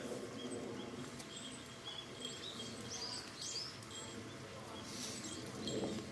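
Background murmur of distant people's voices, with several short bird chirps near the middle.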